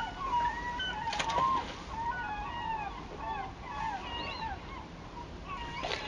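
A flock of gulls calling: many short, wavering cries overlapping over the steady rush of the river, with two brief sharp clicks, about a second in and near the end.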